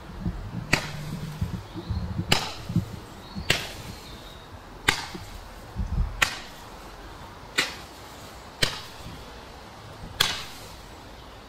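Consumer fireworks going off: a string of about eight sharp bangs, roughly one to one and a half seconds apart, with a low rumble under the first few.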